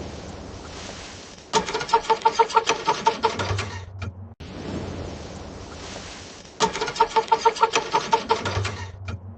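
A car's starter cranking a cold engine in two bursts of about two seconds each, with fast even pulses at about seven a second, and the engine never catching. A steady hiss fills the gaps between the attempts.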